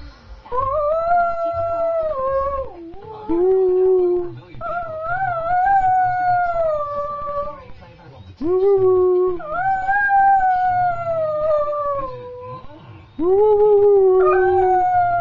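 Dachshund howling: a series of about six long howls, each rising in pitch at the start and sliding down at the end, a few of them dropping to a lower note.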